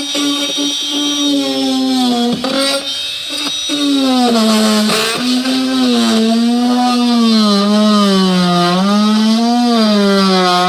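Oscillating multi-tool running while cutting, a high buzzing hum whose pitch sags and wavers as the blade is pressed into the material, with a few sharp clicks in the first three seconds.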